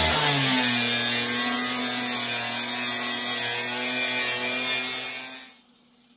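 Electric angle grinder with an abrasive disc grinding along the welded seam of a sheet-steel door-skin patch panel: a loud, steady grinding hiss over the motor's hum. It stops suddenly about five and a half seconds in.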